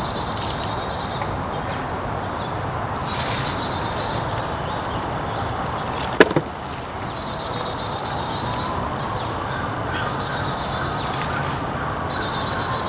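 A small bird singing a repeated high phrase, a short falling note running into a quick trill, about every three to four seconds. From about halfway through, a distant siren slowly rises and falls. One sharp knock comes about six seconds in.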